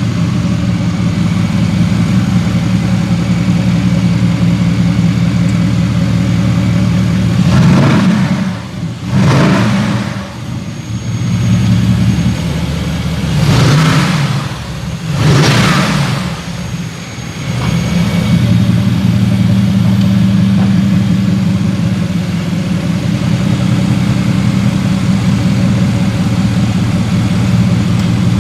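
2020 Mercedes-AMG GT engine idling steadily. It is revved in quick blips, twice about a third of the way in and twice more around the middle, and settles back to idle each time.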